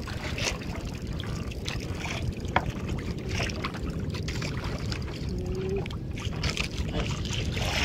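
Steady wash of wind and water around a small fishing boat at sea, with scattered short knocks.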